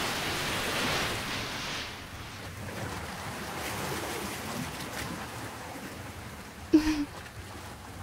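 Ocean surf washing up on a beach, louder for the first couple of seconds and then softer. Near the end there is a brief, louder vocal sound.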